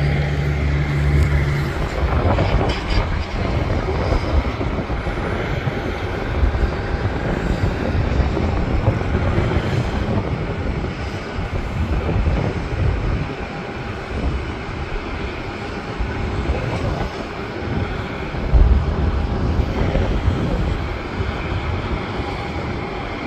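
Jet airliner engines running at an airport, a steady rush with an uneven low rumble underneath.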